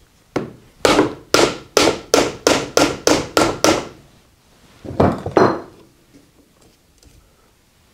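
A hammer tapping on the shaft end of a repulsion induction motor, about nine quick blows at roughly three a second with a faint metallic ring, then two more a second later. The blows drive the motor's end bell off a shaft that is binding on a burr from the keyway or set screw.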